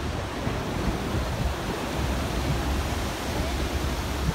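Steady rushing noise of the Arkansas River's whitewater rapids mixed with wind buffeting the microphone, over a steady low rumble.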